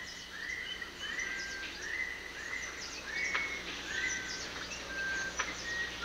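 Tropical rainforest ambience: a bird repeats a short whistled note about twice a second, each note rising and then holding, at slightly varying pitch. Fainter high chirps and a few sharp ticks sound over it.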